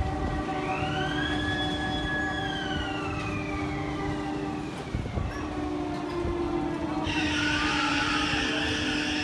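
Fabbri Booster ride in motion: a steady machine hum, with a long wailing tone that rises and then slowly falls over about three seconds. About seven seconds in, a steady hiss joins it.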